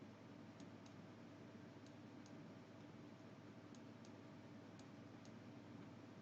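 Faint computer mouse clicks over a low room hum: four pairs of clicks, each pair a fraction of a second apart.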